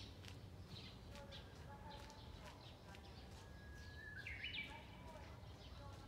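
Japanese bush warbler (uguisu) singing once about four seconds in: a long, steady whistled note that breaks into a quick, higher 'hokekyo' flourish. Other small birds chirp faintly throughout.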